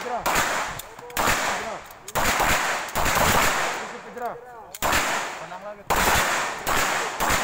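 Handgun shots fired one at a time, about seven in all, roughly one a second, each sharp crack trailing off over most of a second.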